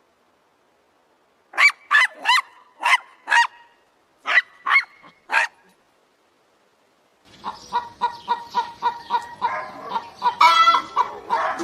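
Geese honking: first a string of about eight single honks, then after a short pause a busier stretch of many overlapping honks, as from a flock.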